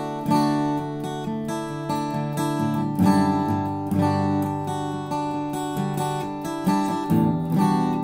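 Redburn RB-200 cutaway acoustic guitar played unplugged, chords strummed and picked fingerstyle, each attack ringing on into the next.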